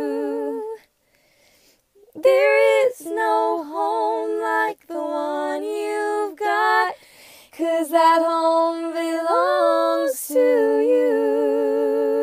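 A woman singing a cappella in two-part harmony with her own overdubbed voice, in sung phrases and long held notes with vibrato, with a short pause about a second in.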